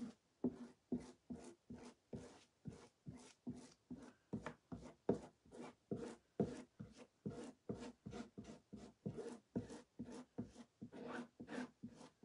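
Plastic squeegee scraping chalk paste back and forth across a silkscreen stencil on a board, in quick even strokes about three a second, skimming lumpy paste down through the mesh.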